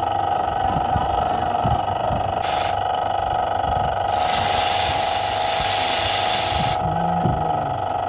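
Cordless electric ratchet spinning in short bursts on the camshaft bearing cap bolts of a Toyota Corolla GLi engine: a brief burst about two and a half seconds in, then a longer one of nearly three seconds from about four seconds in. A steady hum runs underneath.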